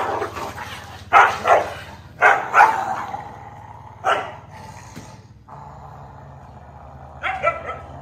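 Several large husky-type dogs snarling and barking in a scuffle: short bursts about a second in, twice between two and three seconds, once near four seconds and a double burst near the end. A steady low hum comes in halfway through.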